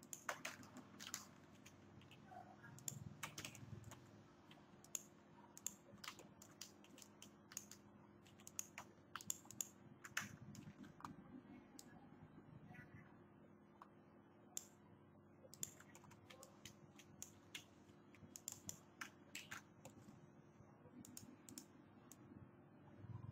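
Faint, irregular clicks of a computer keyboard and mouse being worked, over a steady low hum.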